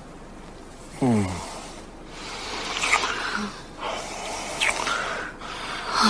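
A couple kissing: a short, falling, low voiced 'mm' about a second in, then breathy kissing and heavy breathing.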